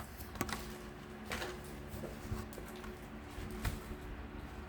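Hot Wheels blister-card packages being handled, giving a few faint scattered clicks and rustles over a steady faint hum.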